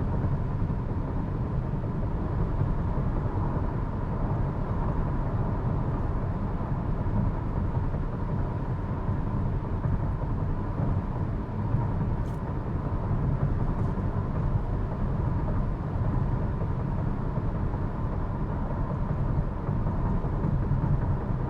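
Tyre and road noise heard inside the cabin of a 2023 Hyundai Kona while driving, a steady low rumble with a faint steady tone above it.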